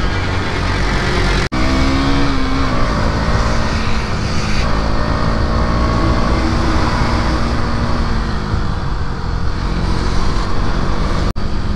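KTM Duke 200 single-cylinder motorcycle engine running under way, with heavy wind rumble on the helmet-mounted mic. The engine note steps down in pitch about a second and a half in, then holds and eases lower again later. The sound cuts out for an instant twice.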